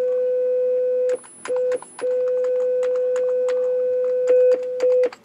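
Commodore Amiga 1200 playing a steady 500 Hz sine test tone through its repaired audio output, with sharp clicks as the channels and settings are switched. The tone cuts out twice briefly about a second and a half in, with a faint very high tone in the gaps, and stops near the end. Its clean steady sound shows the audio circuit, just fixed with new capacitors, is working.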